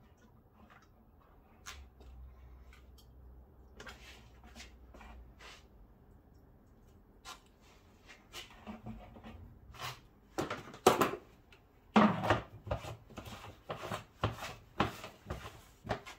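Irregular knocks and clicks of objects being handled, sparse at first and then a quick run of louder knocks in the second half.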